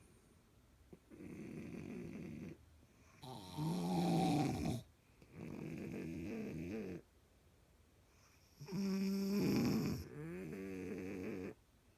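Two sleepers snoring in stereo. Loud, rattling, pitched snores come twice, alternating with quieter, breathier snores, roughly every couple of seconds.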